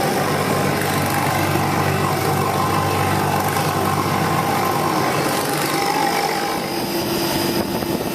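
Refrigeration condensing unit of a milk-tank ice-bank cooler running steadily: a constant low hum under a broad rushing noise. It has just been restarted after a refrigerant leak at the fusible plug was repaired.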